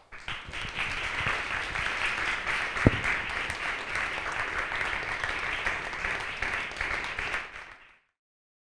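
A roomful of people applauding, a dense steady clapping that stops near the end. A single sharp thump about three seconds in is the loudest moment.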